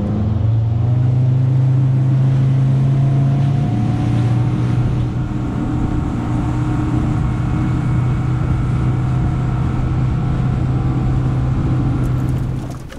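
Outboard motor pushing a small boat at speed. The engine note climbs over the first second as it throttles up, then holds a steady drone that settles slightly lower in pitch about four seconds in.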